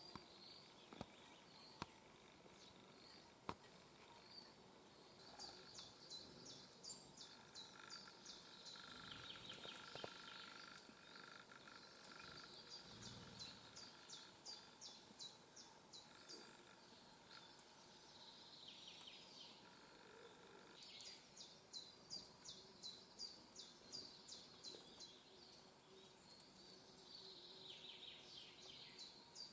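A small songbird singing faintly outdoors, three times over: each song is a quick run of high notes that ends in a lower falling flourish. Two sharp clicks come in the first few seconds.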